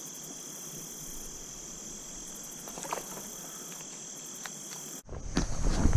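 Insects trilling in a steady, high-pitched chorus over faint stream hiss. It cuts off abruptly about five seconds in, replaced by louder thumps and rustling.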